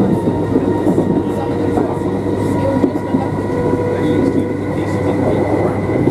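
Inside a class 319 electric multiple unit running steadily at speed: continuous rumble of wheels on the track with a steady whine from its GEC G315BZ traction motors.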